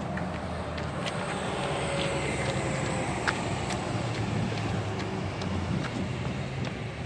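Steady low engine hum of road traffic, with scattered light ticks of footsteps on a concrete path.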